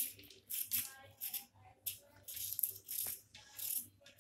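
A kitchen knife scraping the ridged skin off a bitter gourd (karela) in short, light strokes, about two a second, shaving the bumps away.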